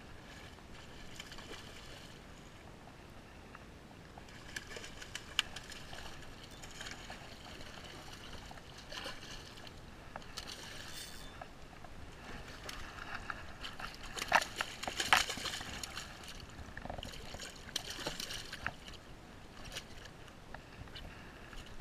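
A hooked pink salmon splashing and thrashing in shallow water in irregular bursts, loudest about two-thirds of the way through.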